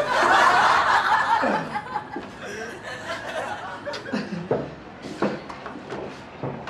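People laughing, loudest in the first second and a half, then trailing off into scattered chuckles.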